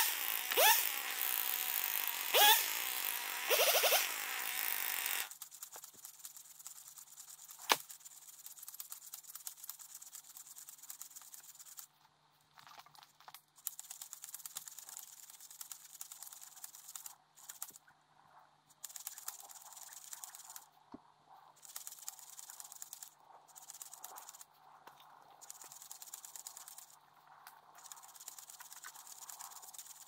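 Husqvarna T540 XP Mark III two-stroke chainsaw revved up about three times, then stopping abruptly about five seconds in. After that there are only faint crackles and clicks, with one sharp click a few seconds later.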